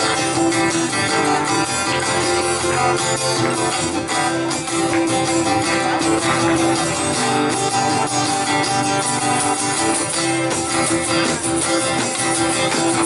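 Two acoustic guitars strumming chords together, playing a song's instrumental intro before the vocals come in.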